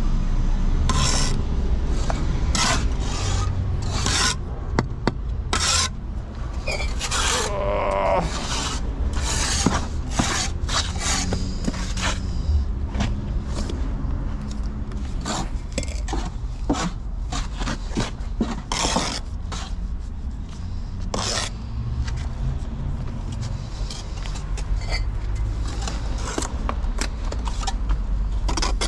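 Steel brick trowel scraping mortar, with repeated short scrapes as mortar is cut from the board and spread onto bricks, over a steady low rumble.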